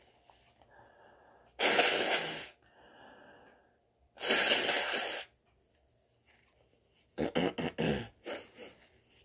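A person blowing her nose hard into a paper napkin twice, each blow about a second long. The napkin rustles as it is folded near the end.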